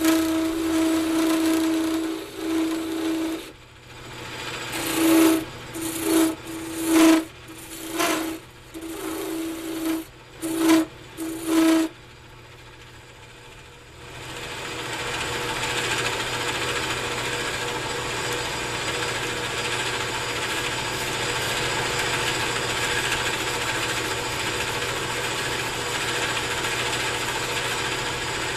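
Wood lathe turning cocobolo pen blanks while a hand-held turning tool cuts in a series of short and longer passes, each cut with a ringing tone. The cutting stops after about 12 seconds, and about two seconds later a steady mechanical whirring sets in and runs on.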